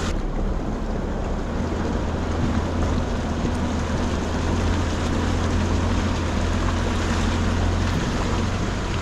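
Mazda BT-50 4WD ute driving on a dirt road: a steady low drone of engine and tyre noise mixed with wind.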